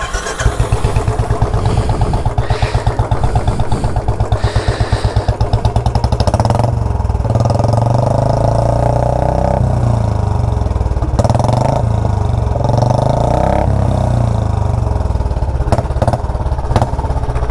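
Royal Enfield Bullet 350 Electra's single-cylinder engine running through a custom aftermarket silencer in place of the stock one: an even, pulsing thump at idle. From about seven seconds in the note fills out and is revved up several times.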